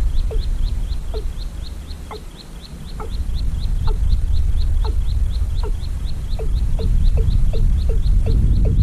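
Outdoor animal calls: a rapid, evenly repeated high chirp about four times a second, with irregular short falling calls lower in pitch, over a steady low rumble.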